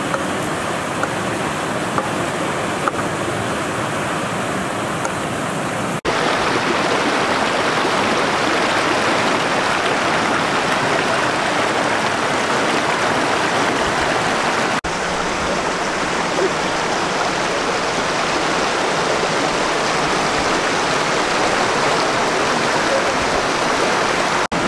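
Steady rush of flowing water, an even hiss without tones, broken by two abrupt cuts: about six seconds in it jumps louder, and again briefly drops out just before the middle of the second half.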